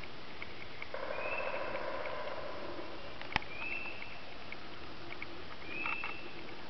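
Wild turkey gobbling, a rattling call lasting about a second that starts about a second in. A short high bird note repeats every couple of seconds, and there is one sharp click a little after three seconds.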